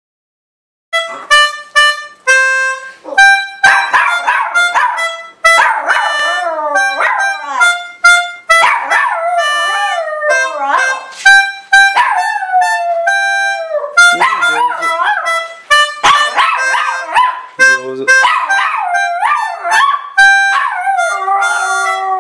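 A melodica playing a tune in short held notes, with a small poodle howling along to it from about three seconds in, its howls wavering and sliding in pitch.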